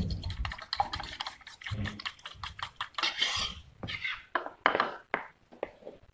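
Metal spoon beating a raw egg mixture in a stainless steel pot: rapid clinking and scraping against the pot for about three and a half seconds, then a few separate taps.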